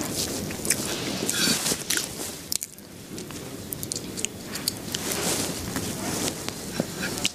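Close, irregular crunching and crackling with many small sharp clicks.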